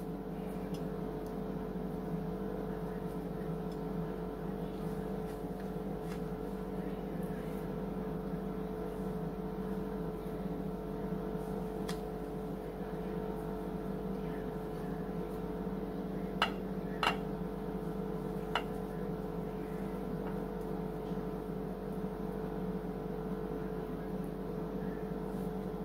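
A steady machine hum with several held tones, from a running appliance. Over it come a few light clicks, two of them close together, as pieces of cinnamon roll dough are set into a glass baking dish.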